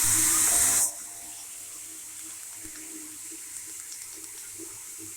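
Rush of running shower water, loud for about the first second, then cutting down abruptly to a much quieter steady hiss.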